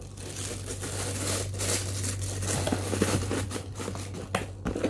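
Clear plastic packaging bag crinkling and rustling as it is handled, with a few sharp clicks near the end; a low steady hum underneath.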